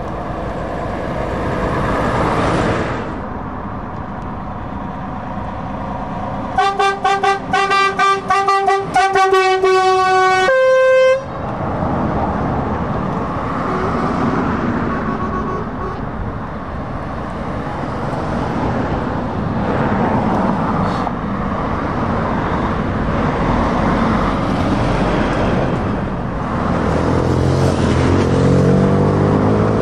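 Lorries and cars driving past, with steady tyre and engine noise. About a third of the way in, a truck's horn sounds a quick run of short toots, then a longer blast, and ends on a higher note. Near the end, a DAF XF lorry's diesel engine rises in pitch as it pulls past close by.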